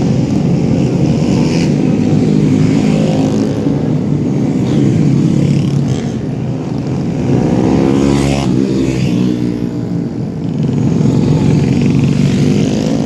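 Four-stroke 125cc underbone racing motorcycles running at high revs. The engine pitch sweeps up and down around eight seconds in as bikes go past.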